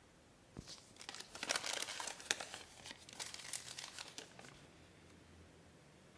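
Paper crinkling and rustling as it is handled, a run of crackles that starts about a second in and dies away after about three and a half seconds.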